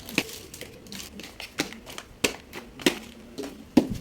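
Detergent packaging being handled during unboxing: light crinkling of plastic with about five sharp clicks or taps spread over the few seconds.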